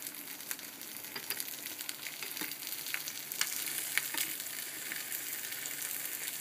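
Fried egg and liverwurst slices sizzling in a frying pan, a steady hiss with frequent sharp pops of fat. In the second half a plastic spatula scrapes and slides under the egg in the pan.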